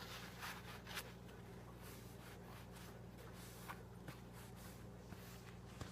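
Faint rubbing and wiping as a pocket knife is cleaned with rubbing alcohol: a few soft, scattered strokes over a steady low hum.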